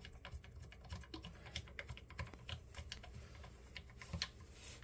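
Faint, irregular small clicks and ticks, several a second, as a plastic nut is hand-twisted up the plastic mounting bolt of a Bemis toilet seat beneath a porcelain bowl. The loudest click comes about four seconds in.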